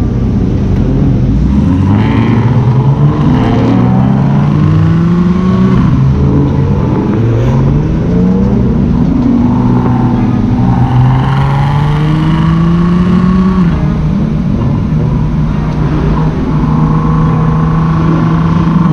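Car engine accelerating hard through the gears: its pitch climbs and drops back at each upshift, several times over, then holds steady near the end.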